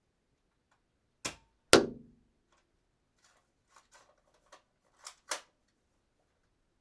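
Dart gun being handled: a sharp click, then a louder snap with a short low thud, then a few small clicks and two quick sharp clicks near the end, typical of cocking and firing.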